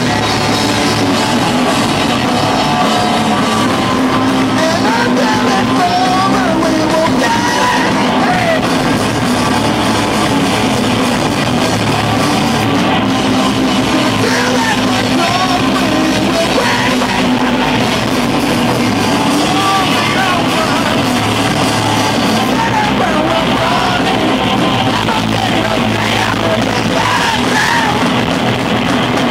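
Live rock band playing loudly: electric guitars, bass guitar and drums, with a singer's voice over them.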